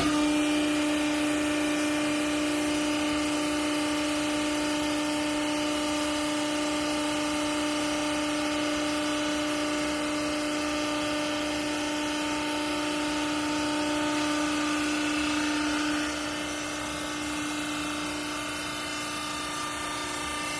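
37.5 kW horizontal clothes scrap baler running: a steady machine whine that comes in suddenly at the start and drops away about sixteen seconds in.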